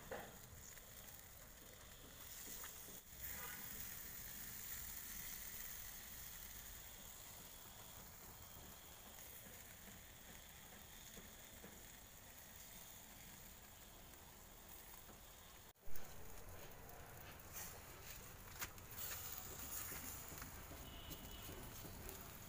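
Faint sizzling and crackling of marinated chicken grilling on a wire rack over glowing charcoal. A single short click sounds about two-thirds of the way through.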